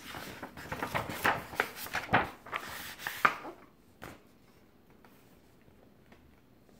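Page of a large picture book being turned on a book stand: paper rustling and scraping for about three seconds, then a single sharp tap about four seconds in.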